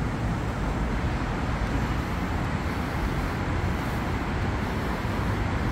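Steady background rumble of road traffic, with no single vehicle standing out.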